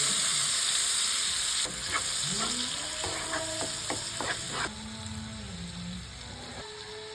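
Food sizzling in hot oil in a pan while it is stirred, with utensil clicks and scrapes against the pan. The sizzle is loudest at first and drops off in two steps, about two seconds in and again near five seconds.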